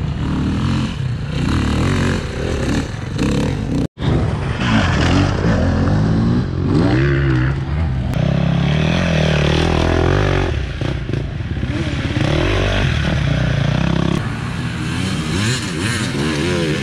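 Several enduro dirt bikes revving hard as they climb a steep dirt hill, engine pitch rising and falling with each blip of the throttle. The sound cuts out for an instant about four seconds in.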